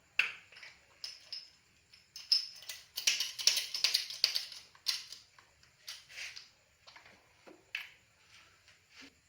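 Irregular clicks, taps and light scrapes of small parts and hand tools being handled during motorcycle brake reassembly, with a dense run of rapid clicking about three to four seconds in.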